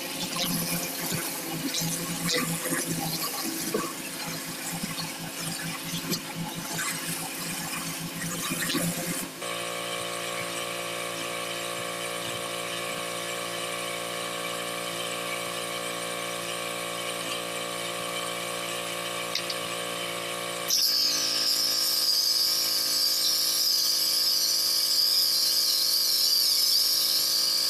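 A pressure washer's engine running steadily. For the first nine seconds water splashes and knocks over it, and about twenty-one seconds in a loud, high-pitched wavering whine joins the engine.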